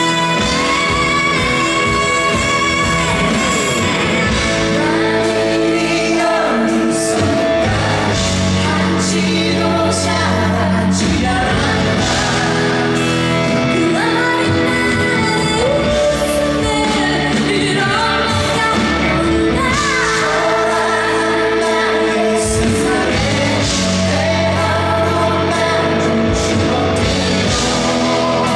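A female vocalist sings a Korean pop ballad with instrumental accompaniment, holding long, sustained notes.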